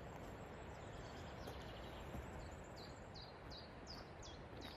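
Faint steady outdoor background noise, with a songbird singing a run of short, quick descending notes, about four a second, in the second half.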